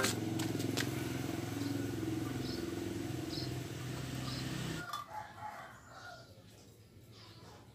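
Domestic chickens: faint high peeps about once a second over a low steady hum, then a few lower calls, fading to near silence about six seconds in.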